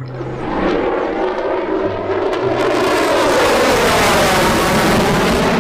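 Fighter jet flying past: jet engine noise that swells over the first second or two and then holds loud, its pitch slowly shifting.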